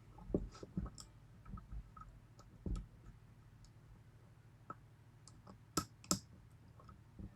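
Lock pick and tension wrench working the pins of a 6-pin Yale pin-tumbler lock: scattered light clicks and taps, with two sharper clicks close together about six seconds in. The picker is hunting for a pin caught in the overmilled keypin chambers.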